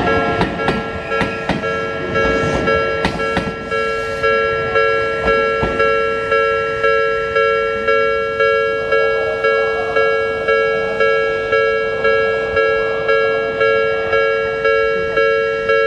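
Japanese railway level-crossing warning alarm ringing in a steady two-tone clang, a little over once a second. In the first few seconds an Odakyu 8000-series train's wheels click over the rail joints beneath it.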